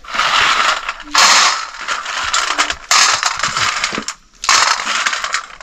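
Small hard wild nuts (katus acorns) rattling and scraping against a stainless steel plate as hands rub and scoop them, in about four bursts of a second or so each.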